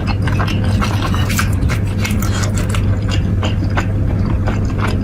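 Close-miked eating: a person biting and chewing food with mouth sounds, many quick, sharp clicks and smacks, over a steady low hum.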